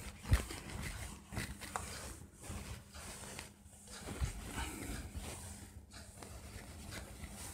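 Whiteboard duster rubbed back and forth over a whiteboard, wiping off marker writing in a run of irregular scrubbing strokes, with one sharper knock shortly after the start.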